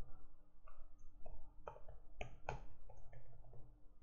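Computer keyboard typing: about ten short, irregularly spaced keystrokes as a password is typed in.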